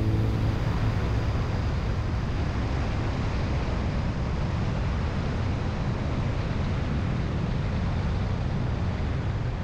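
Honda ST1300's V4 engine running steadily at cruise, with wind rushing over the microphone as the motorcycle rides along.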